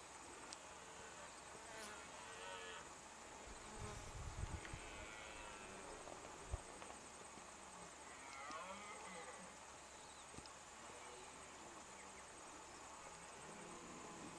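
Faint outdoor bush ambience: a steady high insect trill with a few scattered bird chirps.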